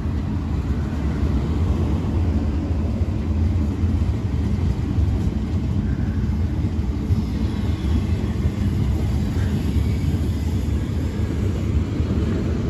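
Two coupled Class 350 Desiro electric multiple units running past close by along the platform: a steady, deep running noise from the train.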